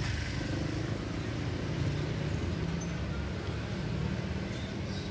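Motor vehicle engine running, a steady low rumble.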